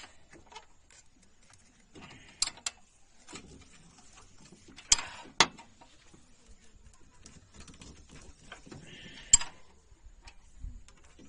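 Sharp metal clinks of a spanner working at the crankshaft pulley of a Maruti Suzuki Alto engine during tappet adjustment: two about two and a half seconds in, two more around five seconds, and one near the end. Short rasping squeaks come just before the first and last clinks.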